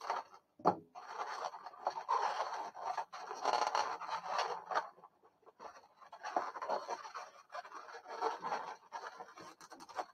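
Inflated latex twisting balloons rubbing and scraping against each other as they are handled and woven together, in two long stretches, with one sharp click about a second in.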